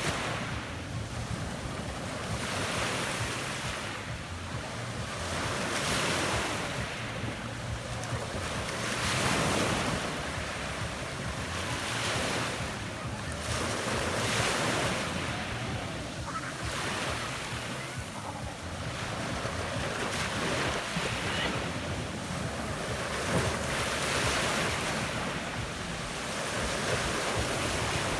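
Small Adriatic sea waves breaking and washing up a pebble beach, the surf hiss swelling every two to three seconds, with a low wind rumble on the microphone.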